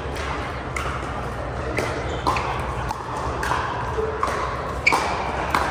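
Pickleball paddles striking a hard plastic ball: sharp pocks at irregular intervals, about seven, the loudest a little before the end, over a steady low hum.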